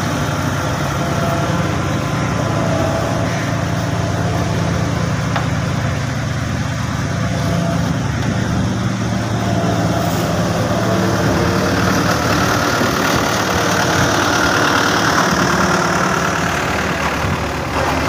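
Diesel engine of an old tandem steel-drum road roller running steadily at idle.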